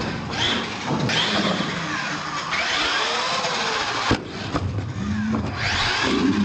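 RC monster truck's electric motor whining up and down in pitch as the truck accelerates, wheelies and turns, with tyres scrubbing on the concrete floor. There is a sharp knock near the start and another about four seconds in, as the truck lands or strikes the floor.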